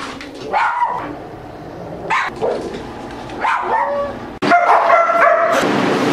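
A dog barking several times while it guards its food bowl from a person standing over it, a sign of food aggression. A little over four seconds in, the sound changes abruptly to a louder, steady stretch with held tones, which cuts off suddenly just after the end.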